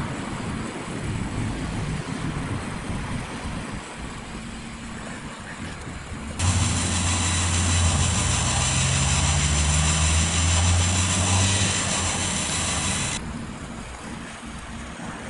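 A small electric motor driving the model boat's winch gear train of red plastic spur gears and a worm gear. It runs with a steady low hum and a slowly rising tone, starting suddenly about six seconds in and stopping suddenly about seven seconds later. Before it there is a low background rumble.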